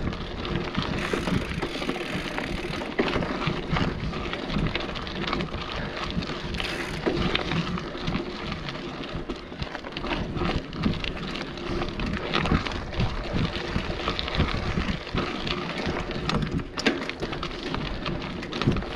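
Mountain bike riding fast down a dirt forest trail: tyres rolling over dirt, rocks and roots, with the bike rattling in many sharp clicks and wind buffeting the handlebar camera's microphone.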